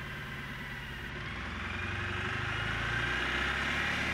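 Mahindra Maxximo's two-cylinder diesel engine revving as the accelerator pedal is pressed by hand, growing louder over the first few seconds with a whine rising in pitch. The engine answering the pedal shows the repaired electronic accelerator pedal position sensor is working.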